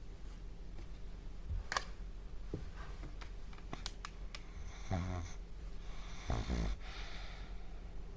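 A sleeping dog snoring: two snores, about five and six and a half seconds in, with a few short clicks before them, over a steady low hum.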